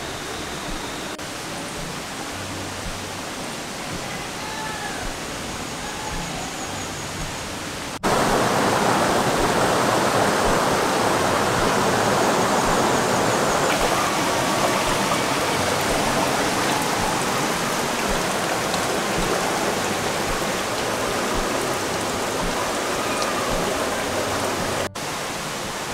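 River water rushing over rocks, a steady hiss that jumps abruptly louder about a third of the way in and drops back shortly before the end.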